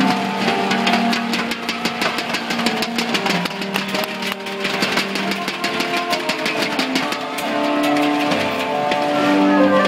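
Live pop band music: an instrumental break of held chords with a fast run of sharp ticks through the first half or so, picked up from the audience in a large hall.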